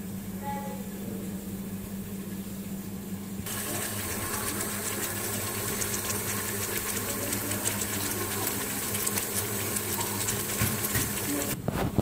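Sliced onions sizzling and crackling in hot oil in a metal pot. The sizzle starts suddenly about a third of the way in and cuts off just before the end, with a steady low hum underneath.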